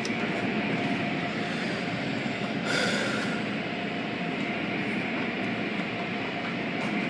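Automatic car wash heard from inside the car: water spraying and spinning cloth brushes beating against the glass and body in a steady wash of noise, with a brief louder hiss about three seconds in.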